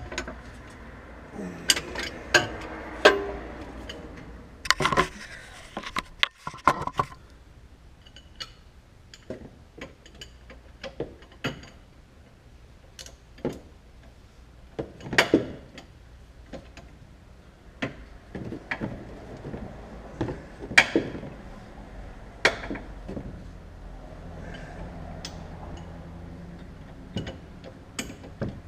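Hand tools clinking and knocking against metal suspension parts while a sway bar end link is fitted, in irregular sharp clicks and taps, a few of them loud.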